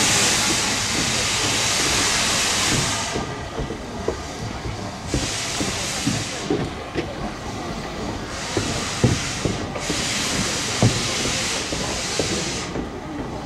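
Steam locomotive hissing steam: a long loud hiss that dies away about three seconds in, then shorter bursts of hiss every second or two. Scattered metallic knocks and clanks sound throughout, two of them loud.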